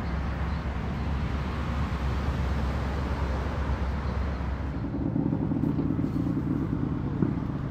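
Engines running with a steady low rumble. About five seconds in, the sound shifts to a higher, steadier engine hum, and there is a short knock near the end.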